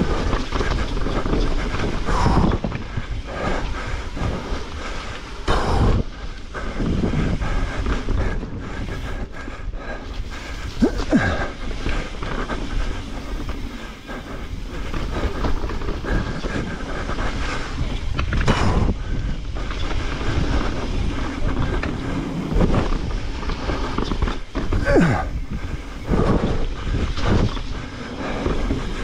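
Transition Spire mountain bike descending a rough trail: continuous tyre rumble and rattling, broken by repeated sharp knocks from hits and landings.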